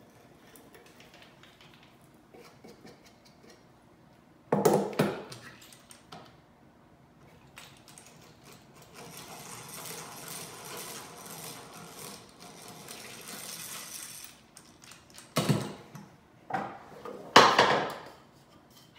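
Egg-beater hand drill boring a hole through a pine stretcher: an even rasping grind lasting about five seconds in the middle. Around it come sharp knocks and clatter of hand tools handled and set down on the wooden workbench, the loudest about four seconds in and near the end.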